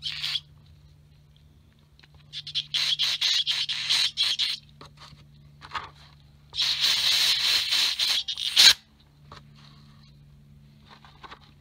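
Gloved hand scrubbing and sloshing metal parts in a plastic tub of cleaning solvent, in two bursts of rubbing and splashing a couple of seconds each, the second louder.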